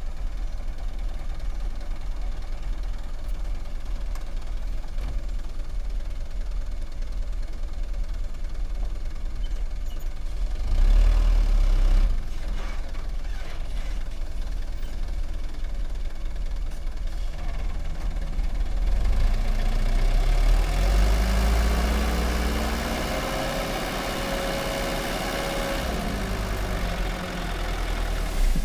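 Diesel engine of a light dump truck idling, with a short rev about a third of the way in as it reverses, then held at higher revs for several seconds while the hydraulic hoist raises the tipper bed to dump its load of soil, a steady whine over the engine near the end.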